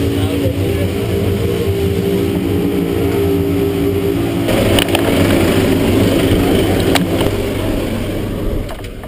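Rescue boat's engines running steadily under way, a constant drone heard inside the cabin. The rush of wind and water grows louder about halfway through, with one sharp knock a little later.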